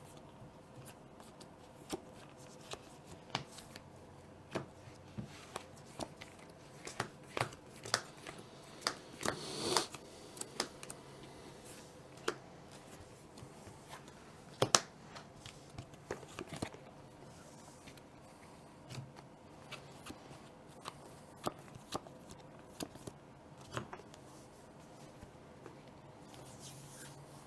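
Playing cards being handled on a tabletop: scattered light clicks and taps as cards are slid, turned and set down, with a brief swish a little before ten seconds in and a sharper tap near fifteen seconds.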